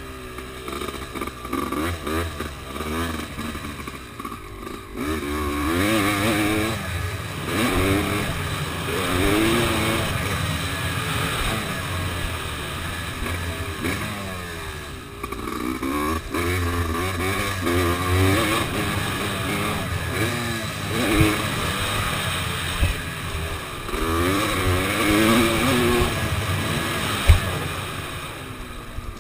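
Honda dirt bike engine heard from on board, revving up and easing off again and again as the rider accelerates and shifts around the track. A single sharp knock comes near the end.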